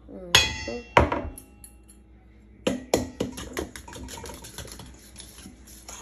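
Stainless steel mixing bowl ringing from two loud metal clanks about a second in, then a fork clinking and scraping quickly against the bowl while stirring cornbread batter.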